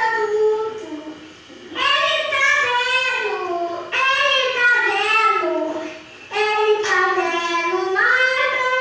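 A small boy singing with no accompaniment, in long phrases broken by short pauses for breath about a second and a half in and again about six seconds in.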